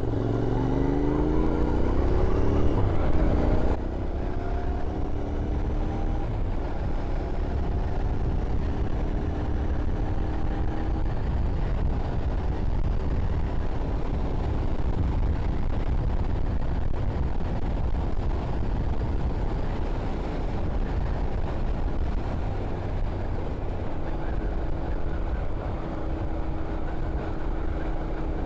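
Royal Enfield Continental GT 650's parallel-twin engine on the move, rising in pitch as the bike accelerates for the first few seconds, then dropping suddenly and running on more steadily. Heavy wind rumble on the microphone.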